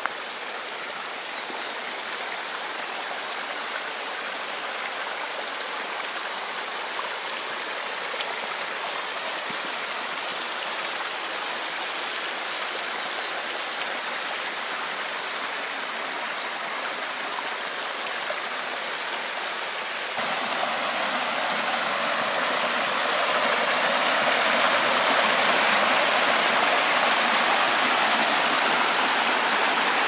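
Río Ebrón's water rushing steadily. About twenty seconds in it jumps suddenly louder and keeps building for a few seconds, as a closer or stronger stretch of flowing water.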